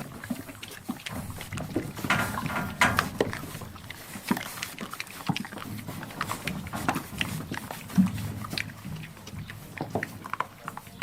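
Animal noises: a busy, irregular run of short sounds with no steady rhythm.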